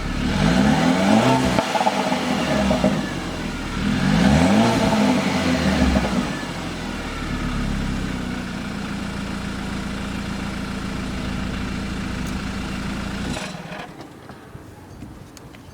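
BMW F30's warm engine through its stock exhaust, revved twice in quick rise-and-fall blips, then settling to a steady idle. The sound drops away suddenly near the end.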